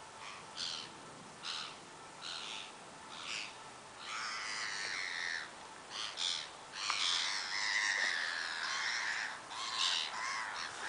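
Harsh, crow-like cawing bird calls, short ones roughly once a second at first, then longer, overlapping calls from about four seconds in.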